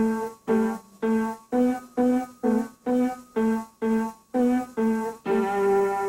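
Keyboard played one note at a time in a simple tune, about two short, detached notes a second, ending on a longer held note about five seconds in.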